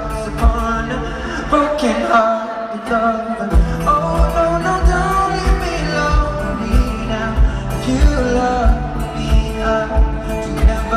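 Live pop song played loud through an arena PA: a steady kick-drum beat under wordless singing and melody. The kick and bass drop out for about a second and a half, about two seconds in, then come back.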